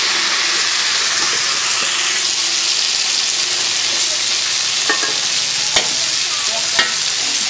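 Food sizzling in hot oil, a loud steady frying hiss. A few sharp clicks sound in the second half.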